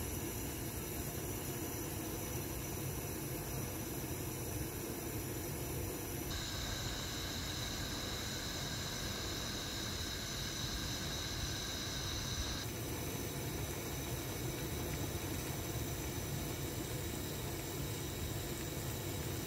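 Gas stove burner hissing under a glass pot of oden broth coming to a simmer, a steady even noise with quiet bubbling. Its character changes abruptly twice, at about six and thirteen seconds.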